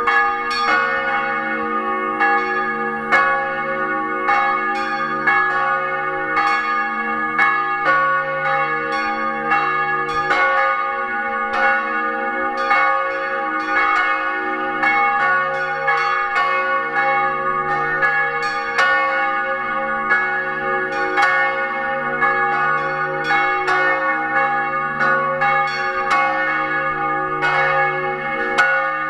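Several swinging church bells, cast by Alexander Buchner in 1923–24, ringing together, heard up close inside the belfry. Clapper strikes follow one another in a steady overlapping peal, and the deep hum of the largest bell swells and fades about every two seconds.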